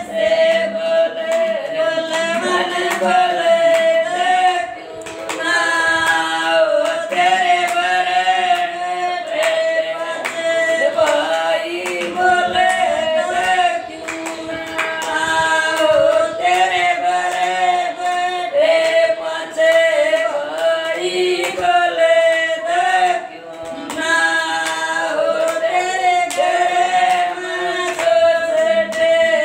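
Women singing a sagai geet, a traditional North Indian engagement folk song, together without instruments, clapping their hands in time.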